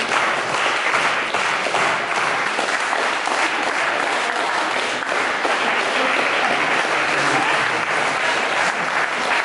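An audience applauding with steady, dense clapping.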